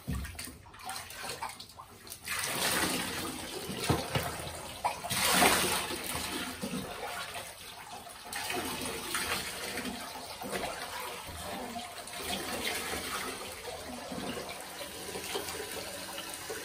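Water poured from a plastic jug over a dog's thick wet coat, splashing into the bathwater in a bathtub. The pouring starts about two seconds in, with a louder splash around five seconds.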